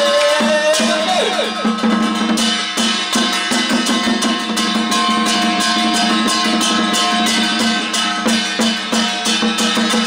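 Temple ritual percussion: drums beaten in a fast, quickening run of sharp strokes from about two seconds in, over a held droning tone.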